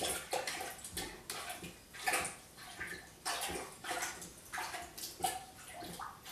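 Toilet plunger pumped up and down in a water-filled toilet bowl, a string of short sloshing splashes about one or two a second.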